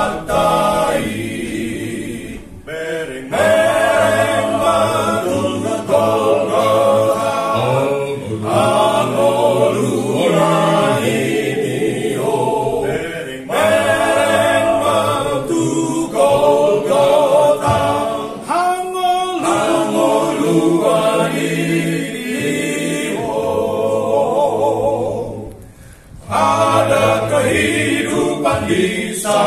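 Male vocal ensemble of six voices singing a hymn a cappella in harmony, in long phrases with brief breaks between them.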